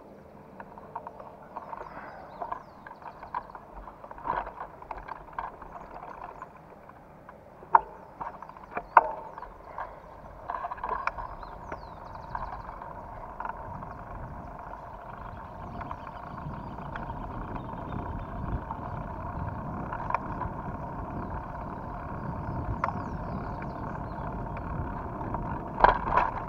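Mountain bike riding over a rough dirt track: steady tyre rolling noise that grows louder as the bike picks up speed, with sharp rattles and knocks from the bike going over bumps.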